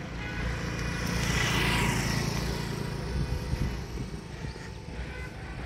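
A motor scooter passing close by: its engine and tyre noise swell over the first two seconds and fade, the pitch falling as it goes past, over a steady rumble of wind on the microphone.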